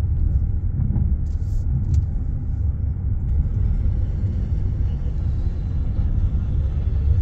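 Steady low rumble, with a brief hiss about one and a half seconds in.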